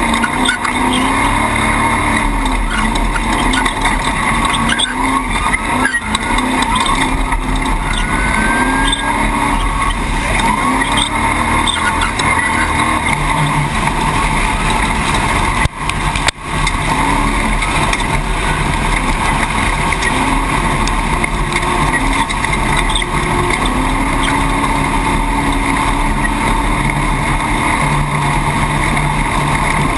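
Off-road race vehicle's engine revving up and down repeatedly over loud, steady driving noise, with a brief break about halfway through.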